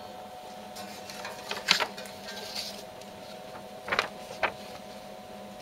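Hot-stamping hologram press humming steadily, with a few short rustles and clicks of a paper sheet being handled, about a second and a half in and again about four seconds in.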